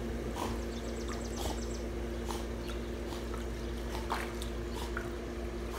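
Dog paddling across a swimming pool: soft splashes and lapping water, over a steady low hum.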